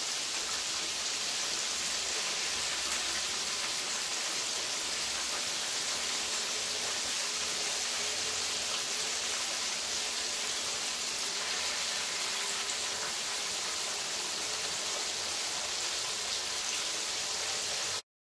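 Chicken wings frying in a skillet of hot oil: a steady, even sizzle. It cuts off abruptly just before the end.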